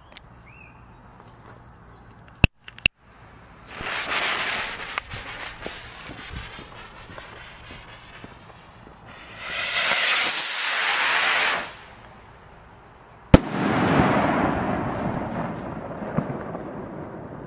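Large firework rocket: a loud hiss of two to three seconds as it launches, then one sharp bang as its shell bursts, followed by a long rolling echo that fades slowly. Earlier come two sharp clicks and a shorter hissing surge.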